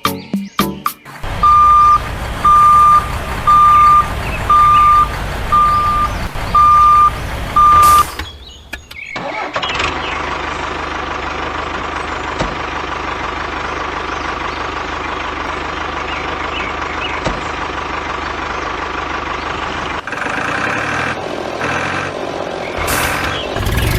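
Reversing alarm beeping seven times, evenly about a second apart, over a low engine rumble. It stops, and the vehicle's engine then runs steadily, changing note near the end.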